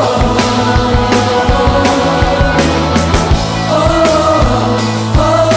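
Live gospel choir music with a rock-style band: voices hold long notes over a steady drum beat and a low sustained bass.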